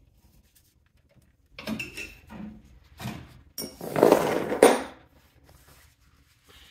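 Light clicks and rustling of things being handled, then a loud crinkling rustle of plastic and paper lasting about a second, from about three and a half seconds in.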